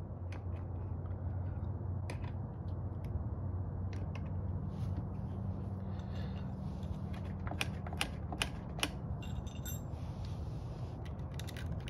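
Scattered clicks and knocks of parts being handled and fitted by hand as a backpack leaf blower is reassembled around its new carburetor, with a small cluster of sharp clicks about eight seconds in and more near the end. A steady low hum runs underneath.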